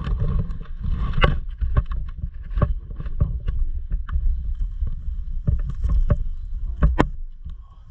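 Wind and handling rumble on a body-worn camera microphone, with irregular sharp clicks and knocks, two close together near the end.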